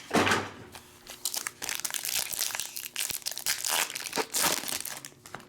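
Trading-card pack wrappers crinkling and cards being handled as packs are opened, with a run of small crackles and rustles and a louder crinkle just after the start.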